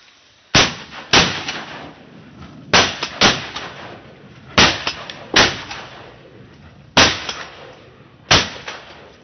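Shotguns firing at ducks: eight loud shots, mostly in quick pairs, each ringing out briefly.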